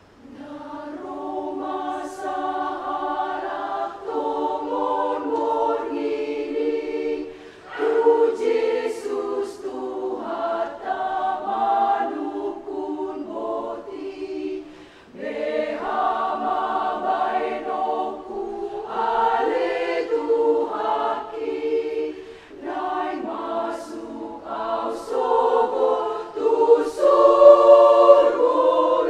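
Women's choir singing together in parts, coming in after a quiet pause and going on in phrases with short breaks between them.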